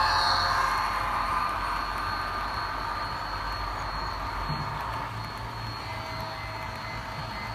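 HO scale model passenger train, led by two Rapido F40PH locomotives, running past on the track: a steady motor hum and rolling rumble. It is loudest as the locomotives go by at the start, then fades gradually as the coaches follow.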